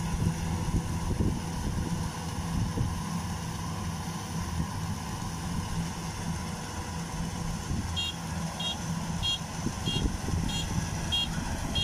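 Kubota DC93 rice combine harvester's diesel engine running steadily while it harvests. About eight seconds in, a high electronic beeping starts and repeats evenly, about one and a half beeps a second.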